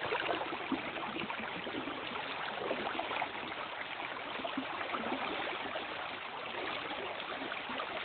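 Shallow river current flowing steadily over a rippled riffle: an even rush of water with no distinct splashes.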